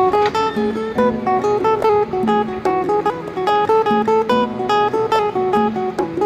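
Background music: a plucked acoustic guitar melody with quick picked notes over a repeating bass note.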